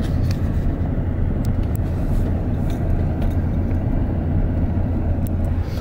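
Steady road and engine rumble of a moving car, heard from inside the cabin, with a low hum under it.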